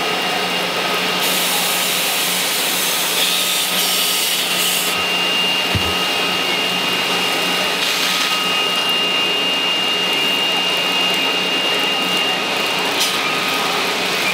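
Firefighting hose jet spraying water onto a burning building, a loud, steady rushing noise. A steady mechanical hum and a thin whine run underneath it.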